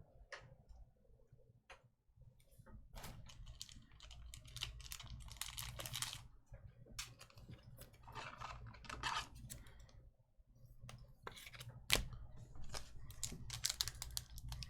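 Trading cards being handled and flipped through by hand: soft irregular clicks and short slides of card against card, with one sharper tap late on.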